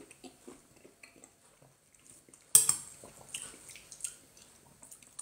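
Metal spoon scraping and clinking in a ceramic bowl while eating, in small scattered taps, with one sharp clink about two and a half seconds in.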